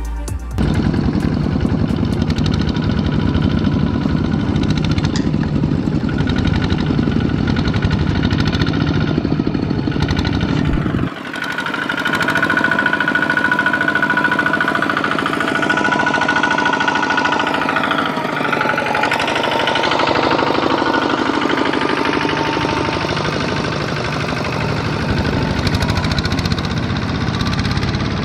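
Single-cylinder diesel engines of two-wheel walking tractors, Kubota ZT155 type, running under load with a knocking chug as they drag trailers through mud. The sound changes abruptly about eleven seconds in.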